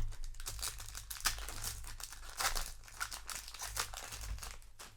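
Foil booster pack wrapper crinkling as it is handled, with irregular crackles and some tearing.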